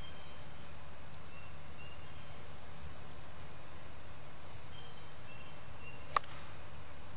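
A golf iron striking the ball: one sharp click about six seconds in. Faint bird chirps come and go.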